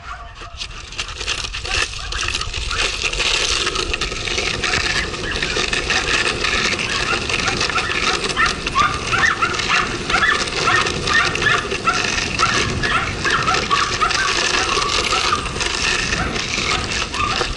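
Longboard wheels rolling on pavement with a steady rumbling hiss, and a dog giving many short, high whines and yelps through the middle of the ride.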